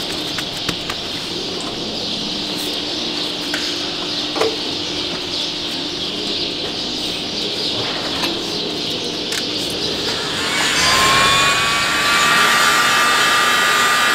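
Steady background hiss with a few small clicks, then about ten seconds in an electric angle grinder fitted with a hoof-trimming disc starts up, its whine rising briefly and settling into a steady high pitch.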